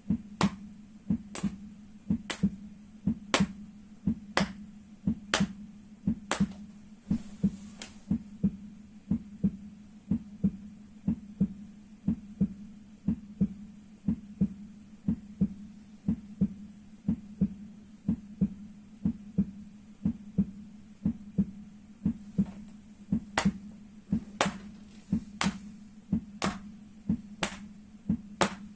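Rhythmic slapping strikes on the soles of the feet, about one a second in a heartbeat rhythm, with softer taps between them. The sharp strikes soften for a stretch in the middle and come back strongly near the end, over a steady low hum.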